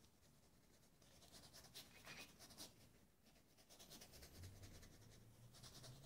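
Faint scratchy strokes of a paintbrush working acrylic paint across a canvas, a quick run of short strokes that gets a little denser and louder about a second in.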